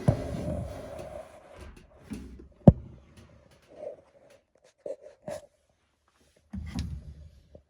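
Scraping, scattered clicks and one sharp knock about two and a half seconds in: parts and tools being handled during work on a dryer's idler pulley.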